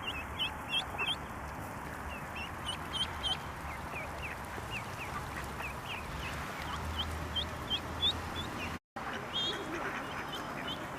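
Mallard ducklings peeping: short, high chirps that rise at the end, about two a second and often in quick runs, over a steady background hiss. These are the distress calls of ducklings crying for their mother. The sound cuts out briefly about nine seconds in.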